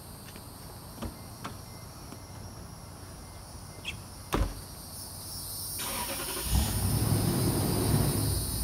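A few light clicks, then a pickup door shuts with a sharp knock about four seconds in. About two seconds later the Toyota Tundra's engine cranks, starts and settles into a steady idle.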